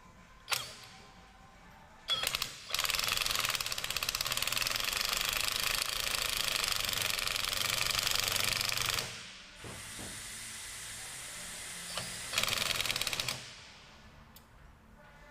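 Impact wrench hammering on a nut in a long burst of rapid blows lasting several seconds, running more quietly for a couple of seconds, then hammering again briefly near the end. A sharp click sounds just before it starts.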